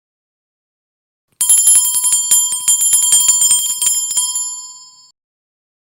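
Small Christmas hand bell shaken rapidly, ringing with many quick strikes, starting suddenly about a second and a half in and dying away over about three and a half seconds. It is the little bell that in Czech custom announces that Ježíšek has brought the presents.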